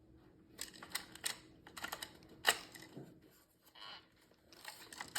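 A run of light, irregular clicks and taps, some in quick clusters, from hard plastic airsoft gun parts being handled, with a brief rustle about four seconds in.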